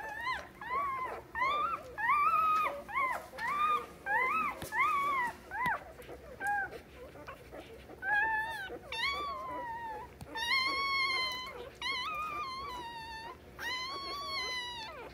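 Newborn F1 Labradoodle puppies squeaking and whimpering while they nurse: a run of short, high cries that rise and fall, about two a second at first, then longer drawn-out cries in the second half.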